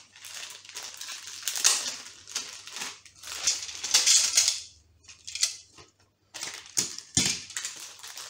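Small clear plastic bags of toy parts crinkling and rustling in the hands as they are handled and opened, in uneven bursts that are loudest about four seconds in. A single dull knock near the end.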